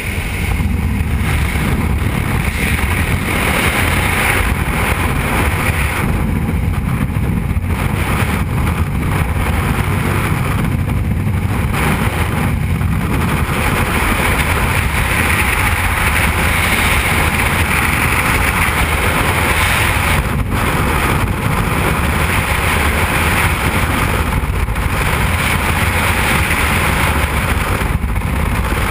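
Loud, steady rush of freefall wind buffeting a helmet-mounted camera's microphone as skydivers fall belly-to-earth after exiting the aircraft.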